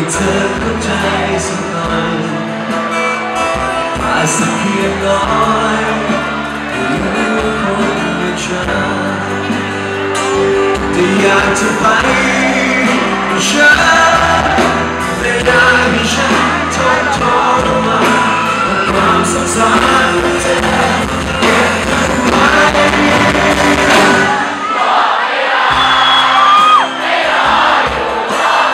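Live band music: a male lead singer with acoustic guitar, drums and bass, with shouts and whoops from the audience. Near the end the bass and drums drop out, leaving the voices and higher instruments.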